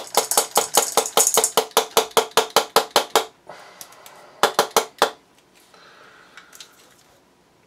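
Rapid, evenly spaced hard clicks, each with a short ring, about seven a second for some three seconds, then a few more a little later.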